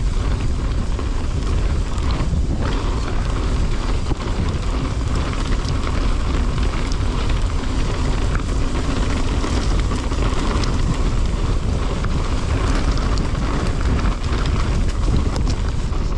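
Strong wind buffeting the microphone of a mountain bike rider on a downhill run, over the steady rumble and rattle of the bike rolling on a rough track.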